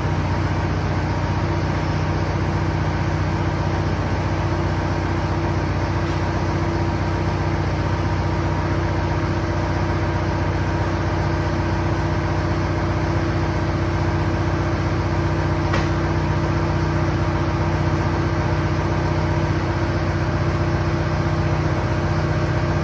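Tractor backhoe's engine running steadily at an even speed, with a couple of faint clicks.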